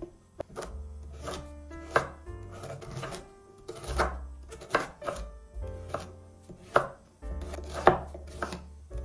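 Knife chopping food on a cutting board: separate sharp strokes at an uneven pace, roughly one a second. Soft background music plays underneath.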